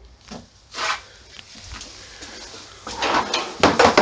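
Uncapping fork scraping wax cappings off a honey frame propped in a plastic tub. There is a single scrape about a second in, then a quick run of louder scrapes and knocks near the end.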